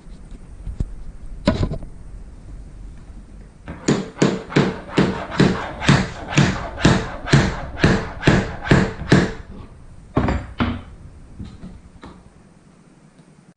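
Hammer blows on a punch driving a latch pin through a plastic case hinge. About fifteen evenly spaced sharp strikes come at roughly three a second, with a single knock before them and two more after.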